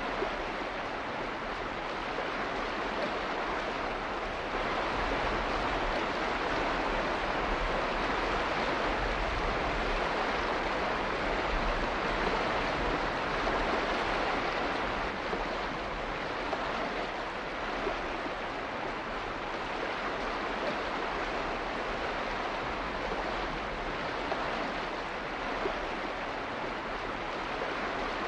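Steady rushing of water, an even hiss with no separate splashes or drops, a little louder for several seconds about five seconds in.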